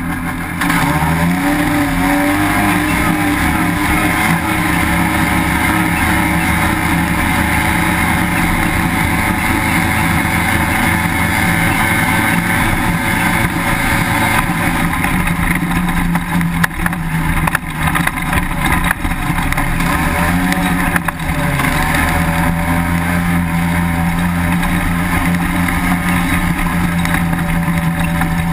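Dune buggy engine revving up as the buggy pulls away about a second in, then running hard at steady throttle across the sand. The revs dip and waver for a few seconds about two-thirds of the way through, then hold steady again.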